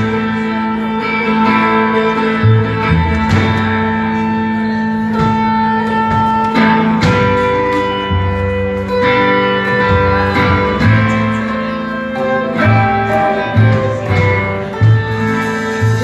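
Rock band playing an instrumental passage: electric guitar holding sustained notes over a steady bass line and drums.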